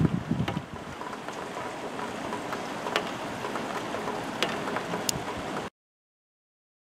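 Steady rain falling on wet ground, with scattered sharp drips tapping through it. Wind rumbles on the microphone in the first second, and the sound cuts off abruptly near the end.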